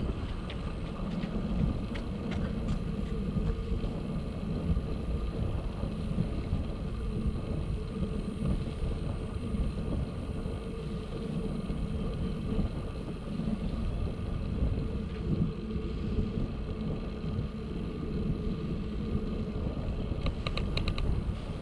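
Ride noise from a bicycle in motion: a steady low rumble of tyres and wind on the microphone, with a short quick run of clicks near the end.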